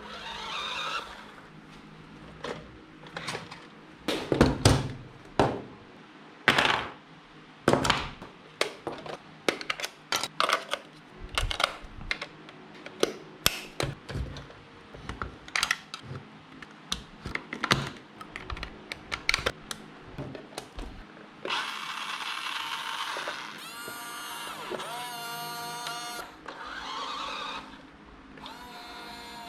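Irregular plastic clicks and knocks from a remote-control toy road roller being handled. About two-thirds of the way in, a small electric motor starts whirring steadily, with a whine that shifts in pitch for a moment.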